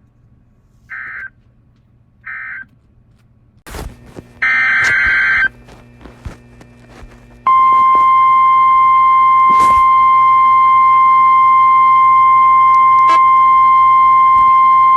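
Emergency Alert System signalling: two short buzzy digital data bursts about a second apart (the end-of-message code closing the previous warning), a click, a one-second burst of header data, then about halfway in a loud, steady, single-pitched alert tone, the NOAA Weather Radio warning alarm that precedes a new weather warning.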